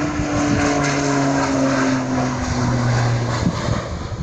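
Single-engine crop-spraying airplane flying past, its propeller engine drone falling steadily in pitch as it goes by, then easing off slightly near the end.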